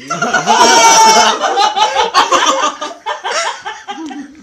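A group of people laughing loudly, loudest in the first second and a half, then in shorter broken bursts.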